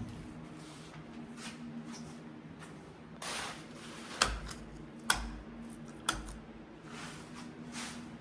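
A steady low hum, with a brief scuffing noise about three seconds in followed by three sharp knocks about a second apart.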